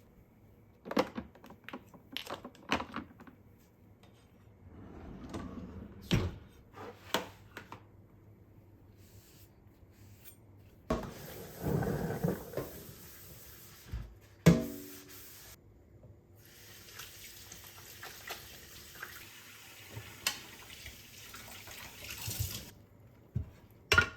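Objects knocked and set down during housework, then a tap running water for about ten seconds, with one loud knock that rings briefly partway through.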